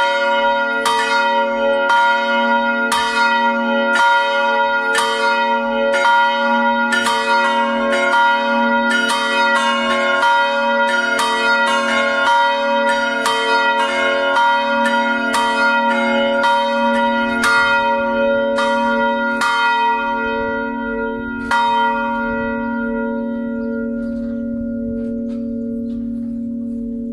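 Three bronze church bells, with strike notes of B-flat, C-sharp and F-sharp, swinging and ringing together in full peal, their strokes overlapping. About 21 seconds in, the strokes stop after a last one and the bells' hum goes on, slowly dying away.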